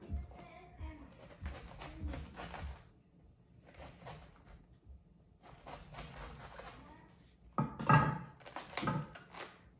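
Chef's knife cutting into a raw red cabbage on a wooden cutting board to remove the core: a series of short cuts and knocks against the board, loudest near the end.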